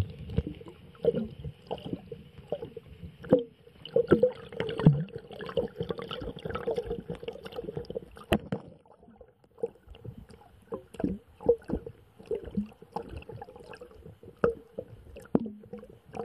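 Muffled water sounds picked up by a submerged action camera: low gurgling and sloshing with irregular knocks and clicks throughout. A faint steady hiss drops out about halfway through.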